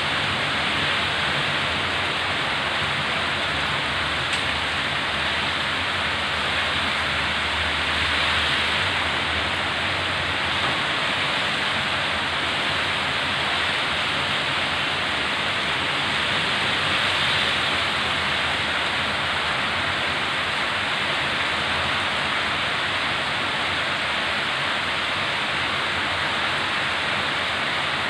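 Heavy rain pouring in strong wind, a steady dense hiss that swells slightly now and then.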